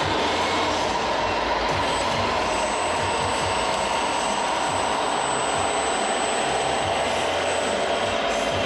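Steady mechanical din of RC model trucks and construction machines running on a course, mixed with the constant noise of a busy exhibition hall.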